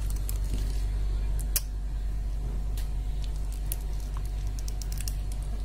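Light plastic clicks and ticks from a small action figure's parts being handled as a hand is swapped and a sword fitted into its grip, with one sharper click about a second and a half in. A steady low hum runs underneath.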